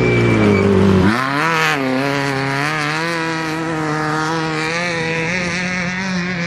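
Off-road race vehicle engine running hard as it passes. Its pitch falls, drops sharply about a second in, climbs again quickly, then holds a fairly steady, slightly wavering note.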